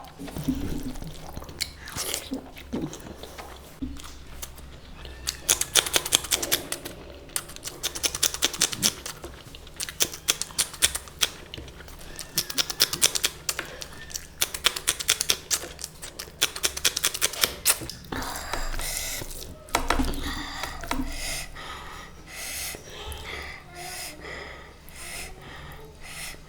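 Close-miked chewing and crunching of food, with dense runs of crisp crunches from about five seconds in to about eighteen seconds, then softer, wetter chewing to the end.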